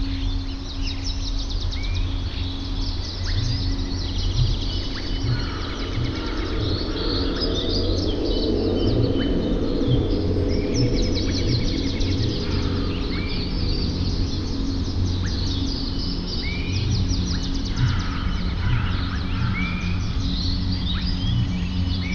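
A chorus of wild birds singing and calling, with fast high trills and a short rising call repeated every few seconds, over a steady low rumble.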